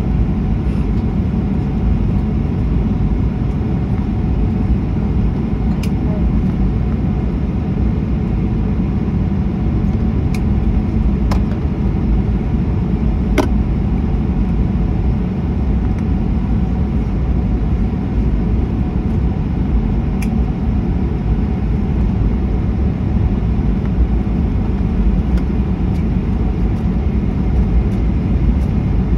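Steady low rumble inside a Boeing 737 cabin taxiing after landing: the jet engines at idle and the airliner rolling along the taxiway, with a few faint clicks.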